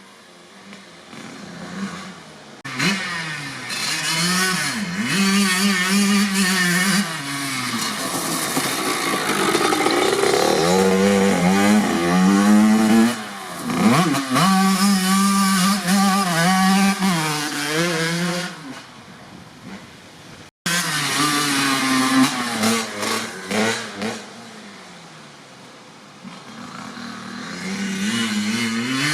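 1997 Kawasaki KX80's 80 cc single-cylinder two-stroke engine, with a DEP silencer on the stock header, revving up and dropping back over and over, holding steady revs in places. The sound cuts out for a split second about two-thirds through.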